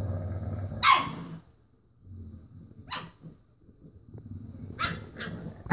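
A dog growling low and steadily, breaking into a sharp bark about a second in, followed by four more short, sharp barks spread over the next few seconds.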